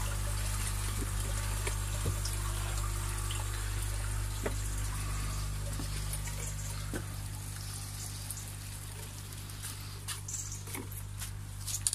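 Water trickling and running through a pond overflow pipe, over a steady low hum that weakens about seven seconds in.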